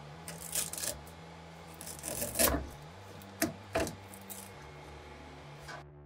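Flush cutters snipping and scraping at a solidified blob of PLA filament caked around a 3D printer's hotend: several short, sharp snips and crunches at uneven intervals, over faint background music.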